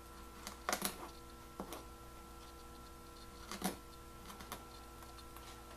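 A knife cutting and scraping into moist packed sugar: a few short, soft scrapes and clicks, the loudest about a second in and again about three and a half seconds in, over a faint steady hum.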